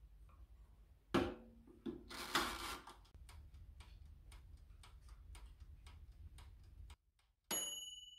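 Small toaster oven: its door knocks shut about a second in, then its mechanical dial timer is wound with a brief scrape and ticks steadily, about three ticks a second. Near the end the timer bell dings once and rings out, the sign that the timer has run out.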